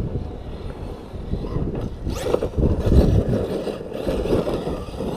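Arrma Outcast 6S RC stunt truck being driven hard, its electric motor and drivetrain running, loudest in a surge about two to three seconds in.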